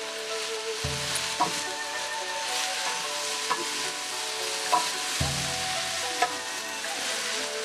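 Beef strips, bell peppers and onion sizzling in a hot wok as a wooden spatula stirs and tosses them, with a few sharp knocks of the spatula against the pan.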